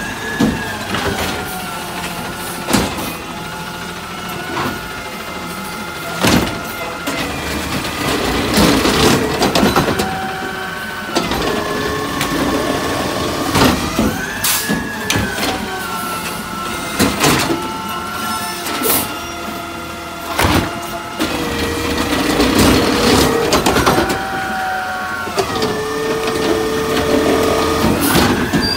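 McNeilus ZR automated side-loader garbage truck on a CNG Peterbilt 520 working its lift arm. The engine and hydraulic pump whine rise, hold and fall each time the arm grabs, lifts and dumps a wheeled cart, about every fourteen seconds. Sharp knocks and bangs come from the carts and arm.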